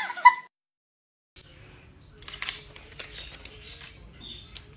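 The short tail of a kitten's meow, then a second of silence, then paper banknotes rustling and crinkling with scattered small clicks as hands handle them.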